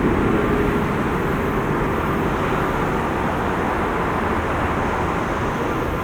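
Jet airliner engine noise: a steady rushing rumble, easing slightly in the first couple of seconds.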